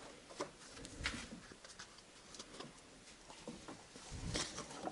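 Faint handling noises of a plastic funnel being pushed into the end of a rubber filler hose: a few light clicks and rubs, a little louder about four seconds in.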